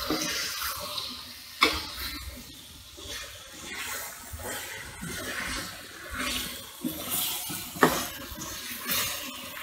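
Liver pieces with onions and chillies sizzling in a frying pan while being stirred with a spatula, a wet frying hiss that swells and fades with the stirring. Two sharp knocks of the spatula against the pan, about a second and a half in and near the end.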